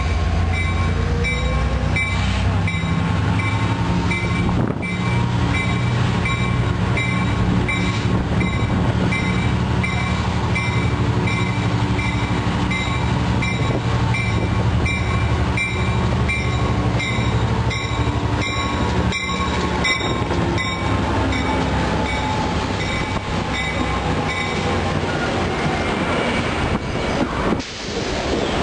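EMD F59PHI diesel locomotive running as it pulls a passenger train into the station, with a high bell striking at an even pace. Near the end, bilevel passenger cars roll past close by.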